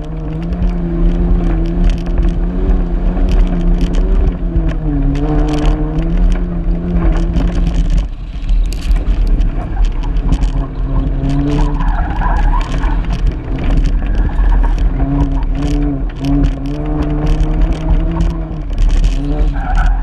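Car engine driven hard on a loose dirt track, its note rising and falling with the throttle and dropping away briefly about eight seconds in, over a heavy low rumble. Gravel and stones click against the car's body throughout.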